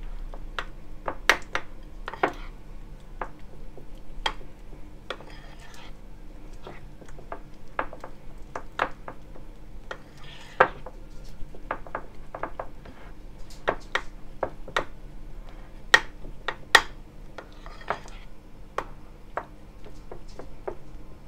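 A utensil stirring sticky peanut-butter batter in a bowl: irregular clinks and scrapes against the bowl, with a few sharper knocks about ten and sixteen seconds in.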